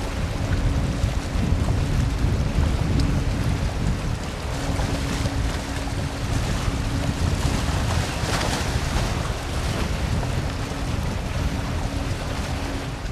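Boeing 767-300ER jet engines: a steady rumbling roar as the airliner lands, mixed with wind buffeting the microphone. A faint steady hum comes and goes through it, and a brief hiss swells about eight seconds in.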